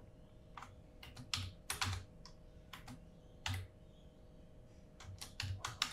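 Computer keyboard typing: scattered keystroke clicks, some single and some in quick little runs, with pauses between, over a faint steady hum.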